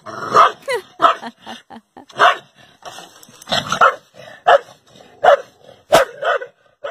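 Short-haired mixed-breed dog barking at its own reflection in a mirror, taking it for another dog: about a dozen sharp barks at uneven intervals.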